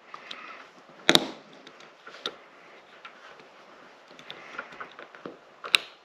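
Faint handling rustle with a few sharp clicks from a small plastic pull-chain switch and its metal bead chain being worked in the hands. The loudest click comes about a second in, with smaller ones just after two seconds and near the end.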